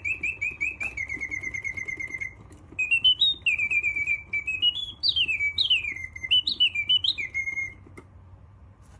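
Mechanical singing bird, German-made, whistling its song: a fast, even trill of chirps, then a series of swooping rising and falling whistles. It stops abruptly about eight seconds in, leaving only a low hum.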